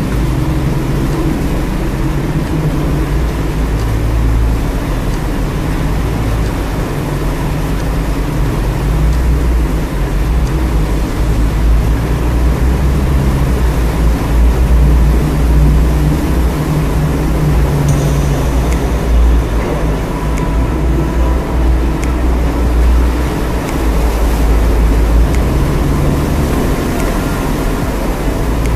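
A Jeep driving slowly through a rock tunnel, heard from inside the cab: a steady low rumble of engine and tyres that swells a little now and then.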